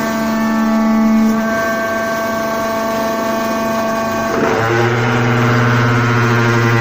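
Hydraulic baler's motor and pump running with a steady hum, its tone shifting to a lower, fuller drone about four and a half seconds in.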